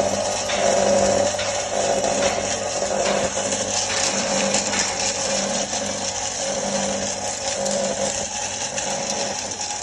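Heavy-duty 2 HP mixer grinder running steadily, its electric motor giving a continuous hum under a high whirring hiss.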